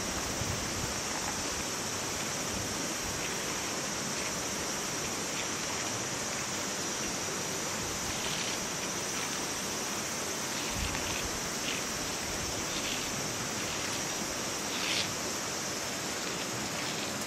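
Steady rushing hiss of running water, even throughout, with a few faint soft ticks.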